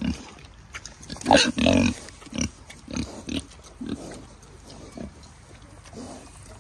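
Kunekune pigs grunting as they eat watermelon rinds: a run of short grunts about every half second, loudest about a second in and fainter toward the end.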